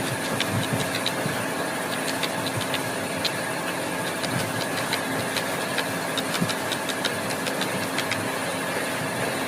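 A machine running steadily, with a continuous hum and noise and many small irregular clicks or ticks over it.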